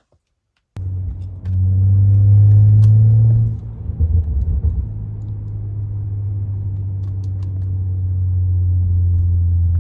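BMW N55 turbocharged inline-six starting on a cold morning: it catches under a second in, runs at a raised flare for about two seconds, then drops back and settles into a steady idle.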